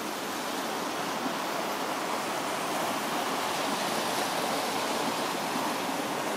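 Rapids of the Falls of Dochart on the River Dochart, water rushing over rocks in a steady, unbroken wash of sound.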